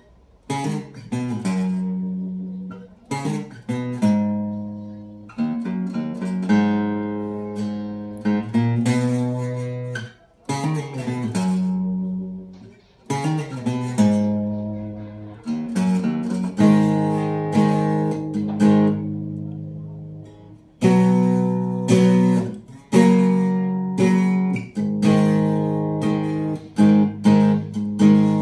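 Epiphone Hummingbird acoustic guitar strung with D'Addario 13–56 gauge strings, strummed in a slow chord progression: each chord rings out and fades before the next, with some quick double strums. The tone is balanced and warm.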